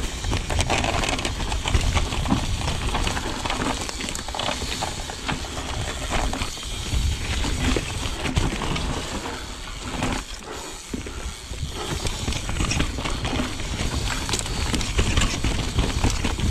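Mountain bike ridden over a dirt singletrack: tyres rolling over dirt and roots, with the bike rattling and knocking over the bumps and a steady low rumble of wind on the camera. It eases off briefly about ten seconds in.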